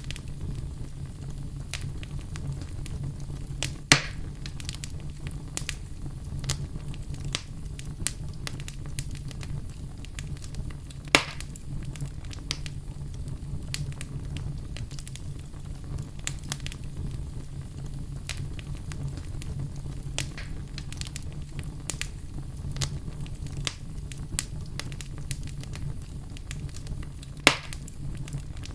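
Wood fire in a fireplace burning with a steady low rumble and irregular crackling, with three loud pops standing out.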